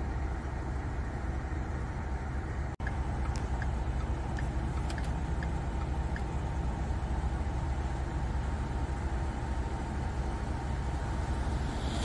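Steady low outdoor rumble, dropping out for an instant about three seconds in, with a few faint short high chirps scattered through the rest.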